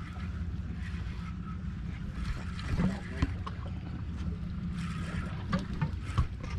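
Steady low hum of a Suzuki outboard motor idling, with wind on the microphone and scattered light clicks from spinning reels being cranked.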